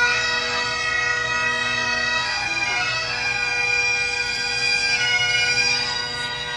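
Bagpipes playing a melody over their steady drone.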